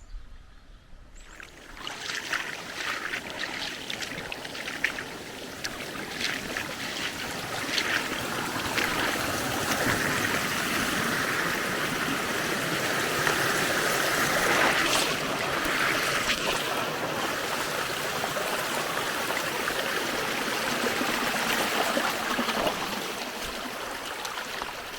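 Small creek splashing over a little waterfall: a steady rush of running water that comes in about two seconds in.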